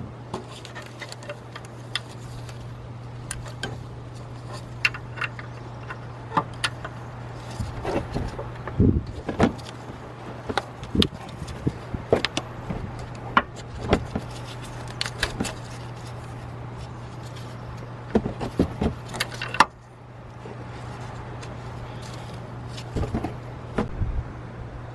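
Hand tools clinking and knocking against metal parts, irregular sharp clicks over a steady low hum, with one loud knock about twenty seconds in.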